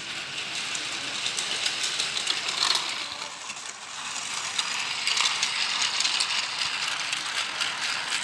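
Plarail EF510 Red Thunder toy locomotive running on plastic track, its small battery motor and plastic gearbox whirring with a fast rattling clatter as it pulls its wagons.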